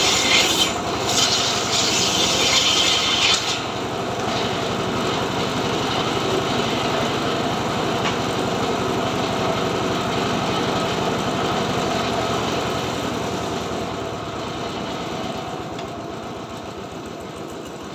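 Engine-driven homemade circular sawmill: the blade rips through a board with a bright, hissing cut for about the first three and a half seconds, then spins free. Over the last few seconds the engine's sound gradually drops as it slows down.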